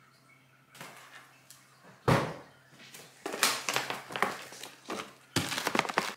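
A single thud about two seconds in, then a large plastic bag of frozen gyoza crinkling and crackling as it is handled.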